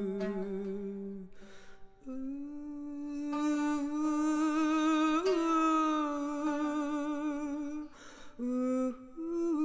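A voice humming a slow melody in long held notes with a slight waver, pausing twice for a breath.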